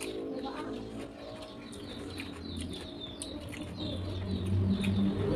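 Close-miked chewing of crispy fried potato, with many small crunches and wet mouth clicks. A low steady hum rises and grows louder about four seconds in.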